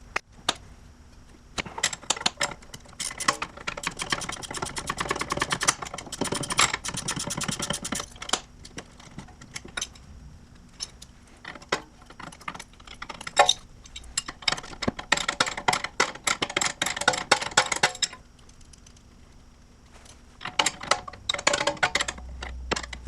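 Hand ratchet clicking rapidly in several bursts, spinning off the nut of a sway bar end link.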